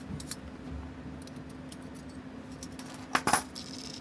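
Small metal tools and watch parts clinking on a watchmaker's bench: a few faint ticks, then a brief cluster of sharp metallic clinks a little past three seconds in.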